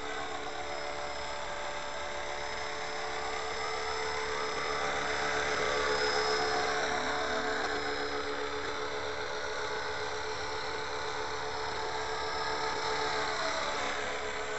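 Radio-controlled scale JetRanger helicopter hovering and manoeuvring low, its motor and rotor whining steadily, the pitch drifting up and down as it moves, a little louder about six seconds in.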